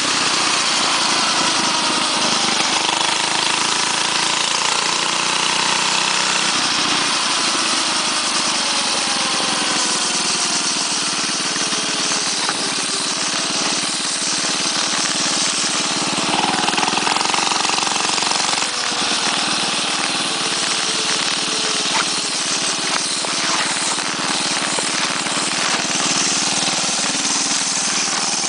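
6.5 hp Tecumseh OHV single-cylinder four-stroke engine with a straight-pipe exhaust running on a moving mini bike, its pitch falling and rising with the throttle.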